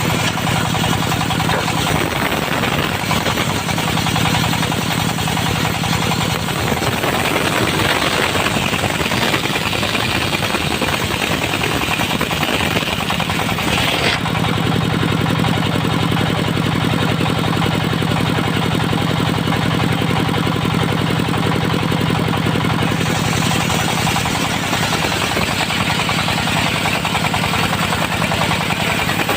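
Engine of a mobile circular sawmill running steadily under load. About seven seconds in, a harsher, noisier sound joins it for about seven seconds and stops abruptly, as the circular blade cuts through a teak log.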